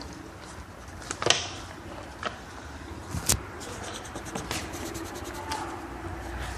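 A few sharp knocks and scrapes over a steady background hum, the loudest about a second in and another about three seconds in, with fainter ticks between.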